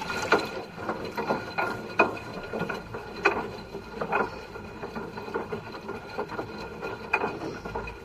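LG Inverter front-loading washing machine tumbling its drum through foamy water during a drum-cleaning wash: water sloshing, with irregular clicks and knocks over a steady high whine.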